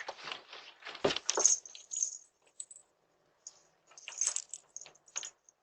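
Light clicking and jingling, in two clusters: one during the first two seconds and another about four to five seconds in, with a pause between.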